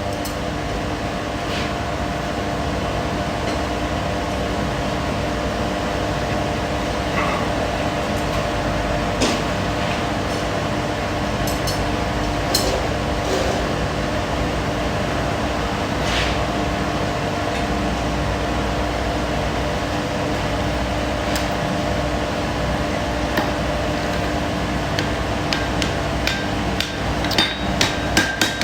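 Forge running with a constant, even drone and a low hum while the steel heats in it. A few isolated sharp knocks, then a quick cluster of them near the end.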